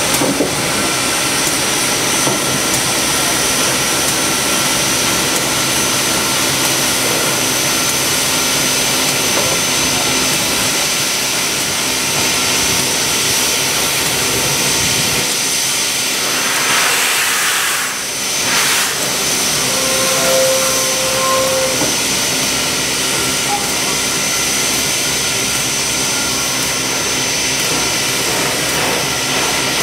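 Pere Marquette 1225, a 2-8-4 Berkshire steam locomotive, creeping slowly on a turntable, its steam and machinery giving a loud steady roar and hiss with a high steady whine. About halfway through there is a brief stronger burst of hissing.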